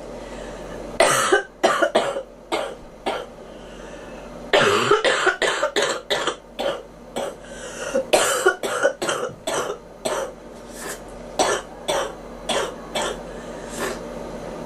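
A girl coughing in repeated fits: a quick run of coughs about a second in, a longer fit from about four and a half seconds, another around eight seconds, then single coughs spaced about half a second apart toward the end.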